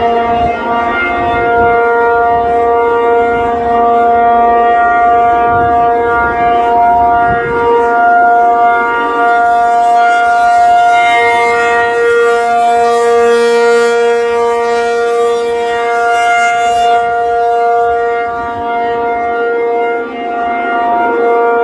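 ACA P-50 rotating electromechanical tornado siren sounding the steady alert tone at full pitch after winding up. The loud, held tone swells and eases slightly as the horn turns.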